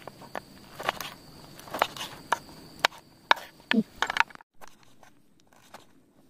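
Kitchen knife cutting tomatoes on a wooden chopping board: irregular sharp knocks of the blade on the board, about two a second. The knocks stop about four seconds in, leaving only a few faint taps.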